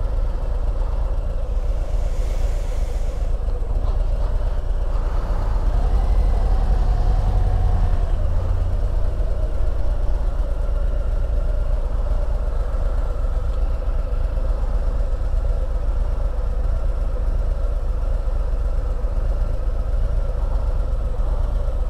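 Harley-Davidson Ultra Limited touring motorcycle's V-twin engine running steadily, a low rumble with little change in pitch or level.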